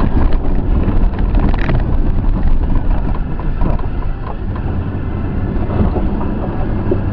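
A four-wheel-drive vehicle's engine running on a trail climb, with wind noise on the microphone and a few knocks in the first couple of seconds. The engine note grows stronger near the end.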